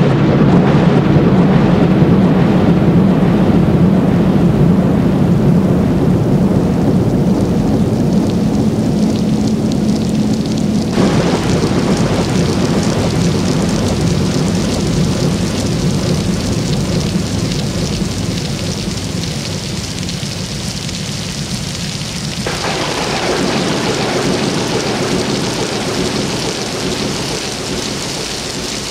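Thunderstorm: a long roll of thunder over steady rain, with fresh rolls of thunder about eleven seconds in and again some ten seconds later.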